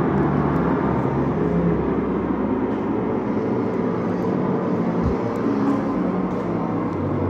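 A steady, low rumbling drone whose low tones shift every second or so, with a brief knock about five seconds in.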